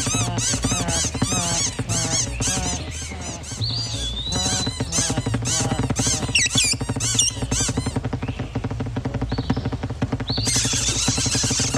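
Cartoon birds chattering and squawking in quick rising-and-falling chirps, several a second, over background music; near the end the whole flock squawks together in a louder, shriller burst.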